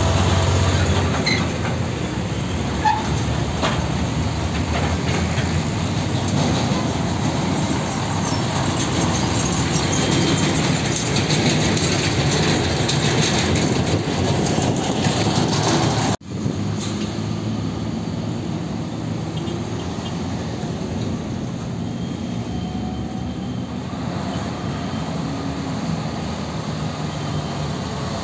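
Heavy diesel trucks pulling empty flatbed semi-trailers pass slowly and close by, their engines and tyres running under a steady clatter from the empty trailers. The sound cuts out for an instant just past halfway.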